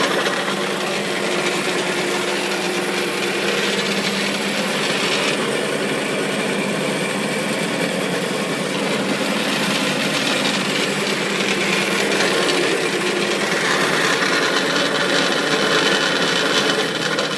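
Elu EBS 3501 bandsaw's 0.75 kW motor running steadily at speed with a loud hum. It is a bit noisy because the saw is not bolted down and its wooden stool of a bench vibrates.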